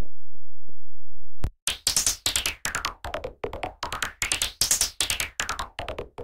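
Samsung SGH-E630 polyphonic ringtone: the previous tune cuts off at the start, and after a quiet second and a half with faint low tones a new electronic tune begins, a quick beat of short synthesizer notes, several sliding down in pitch.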